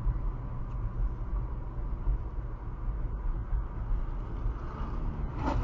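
Road and engine noise of a car driving, picked up by a dashcam: a steady low rumble.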